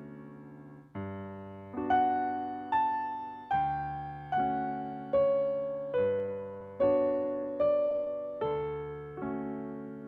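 Solo piano playing slowly, a chord struck about every 0.8 seconds and left to fade, with the melody climbing over the first few seconds and then stepping back down.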